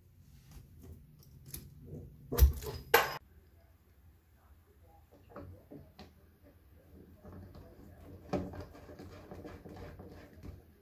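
Handling of hose fittings: sharp clicks and clacks of a faucet quick-connect adapter and hose coupling, the two loudest about two and a half and three seconds in. Then softer clicking and rattling as the inlet hose coupling is screwed onto the portable washer's water inlet fitting.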